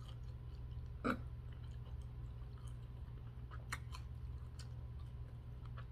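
A person chewing crispy fried chicken wings close to the microphone, with faint scattered mouth clicks and one brief hummed sound about a second in, over a steady low hum.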